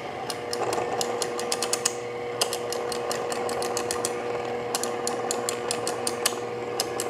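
Fellow Ode Brew Grinder with aftermarket 64 mm flat burrs running empty with a steady motor hum. Its grind-adjustment plate is clicked toward fine in quick irregular runs of detent clicks: the burrs are being brought toward the point where they chirp, to calibrate the finest setting.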